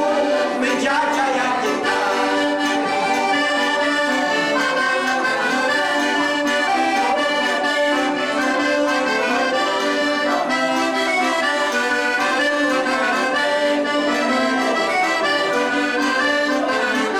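Piano accordion (a Giustozzi) playing an instrumental traditional folk tune: a melody of changing notes over steadily held lower notes.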